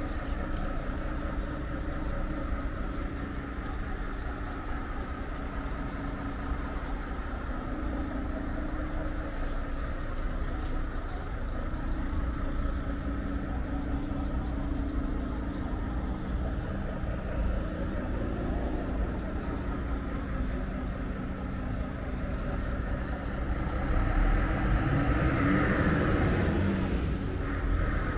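A vehicle engine running steadily with a faint hum, growing louder for a few seconds near the end.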